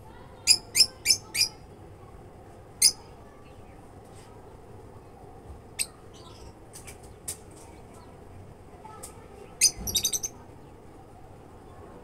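Caged lovebirds giving short, shrill chirps: four in quick succession about half a second in, a single one near three seconds, scattered fainter ones midway, and a quick burst of several about ten seconds in.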